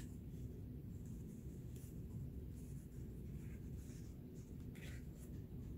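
Faint rustling and brushing of felt fabric being handled and pressed into shape by hand, in a few short scratchy strokes over a steady low hum.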